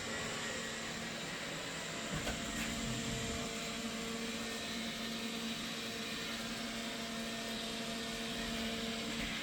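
Roomba robot vacuum cleaner running with a steady whirring hum, with a light knock about two seconds in.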